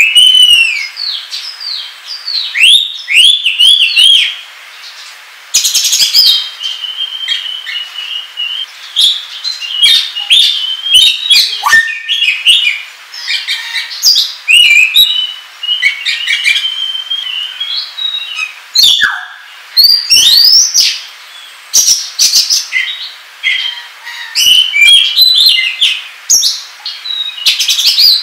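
Oriental magpie-robin (kacer) singing loudly in the excited 'ngobra' style: a fast, varied stream of whistled phrases, rapid chattering notes and sharp upward and downward glides, broken by short pauses.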